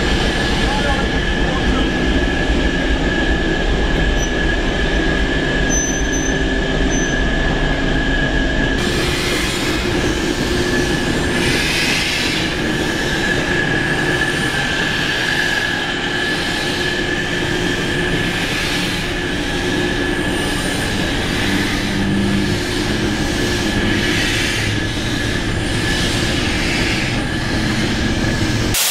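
Diesel shunter and steam locomotive moving slowly through an engine shed. A steady high-pitched squeal sits over the low running of the shunter, and from about nine seconds in there are repeated short bursts of hiss.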